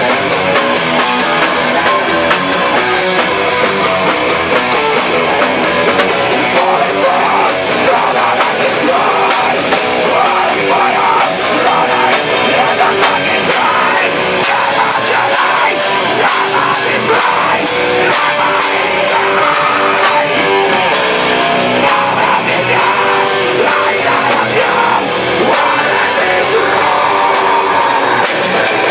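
Heavy metal band playing loud and without a break: electric guitars over a drum kit.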